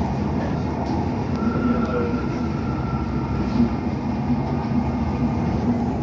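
Docklands Light Railway train running along its track, heard from inside the front car: a steady rumble of wheels on rails, with a faint high whine for about a second, beginning a second and a half in.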